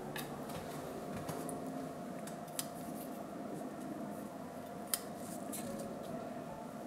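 Scissors snipping the stems of potted herbs: a few short, sharp snips spread out, the loudest about five seconds in.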